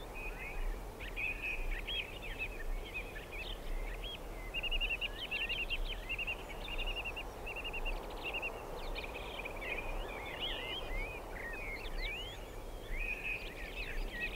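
Songbirds chirping and singing almost without a break, over a steady background hiss.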